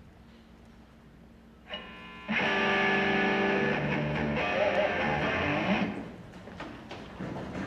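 Electric guitar with distortion: a short note about two seconds in, then a loud chord struck and held for about three and a half seconds before it drops away.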